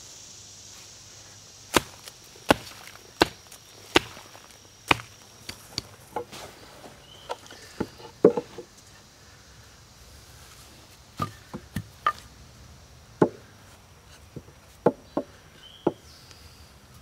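Sharp wooden knocks of a wooden club striking a froe to split a short log section with the grain. About five strikes come in a steady rhythm a couple of seconds in, followed by irregular, lighter knocks and taps.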